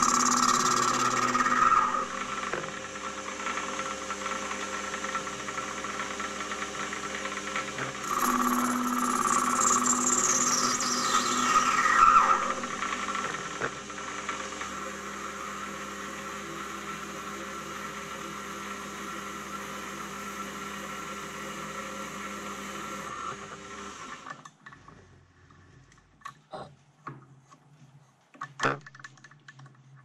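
Small metal lathe running, facing the end of a brass rod with an insert tool: a high cutting whine that slides down in pitch near the start and again from about 8 to 12 seconds, over the steady hum of the motor and gears. About four-fifths of the way through the lathe stops, and a few knocks and clicks of tooling being handled follow.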